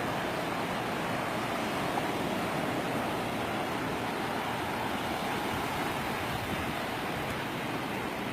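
Ocean surf breaking on a sandy beach: a steady rush of waves with no single crash standing out.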